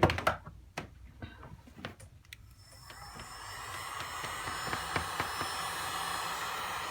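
A few sharp clicks, then an electric heat gun switched on about three seconds in, its fan building to a steady blowing hiss as it heats the phone's back glass to soften the adhesive.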